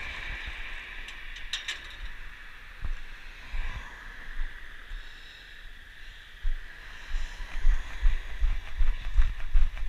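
Running footfalls picked up by a head-mounted GoPro Hero 4 Silver, low thumps about three a second that grow louder from the middle on, over a steady higher hiss.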